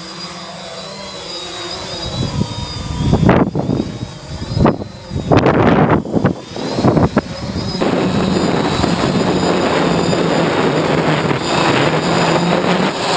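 Electric quadcopter drone's motors and propellers whining as it lifts off, the pitch shifting with throttle, with several loud gusty bursts as it climbs. From about eight seconds in, a steadier, noisier rotor drone mixed with wind rush, heard from the drone's onboard camera.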